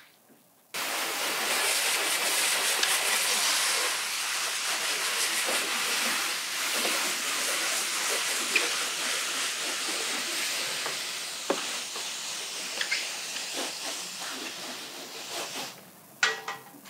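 Spray wand on a hose hissing steadily as it sprays a fine mist of liquid over a car's hood. It starts abruptly under a second in, eases a little after a few seconds and stops near the end, followed by a couple of short clicks.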